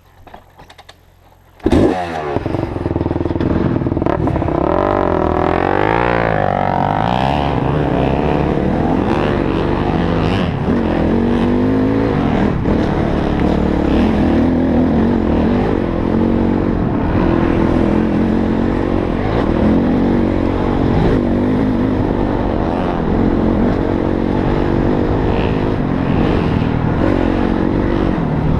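Motorcycle engine starting abruptly about two seconds in, revving up with a rising pitch, then running steadily with its pitch rising and falling as it is ridden.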